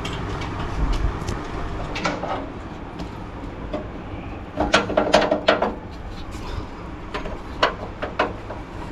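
Clicks and light clatter of hand tools on the bolts and plastic clips of a 4WD's front bar as a screwdriver works them loose, with a dense run of clicks about halfway through, over a steady low hum.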